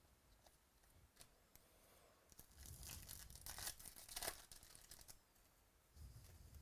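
Faint crinkling and tearing of a foil trading-card pack wrapper being torn open, with a few small clicks. The rustle is densest in the middle, with two sharper crackles.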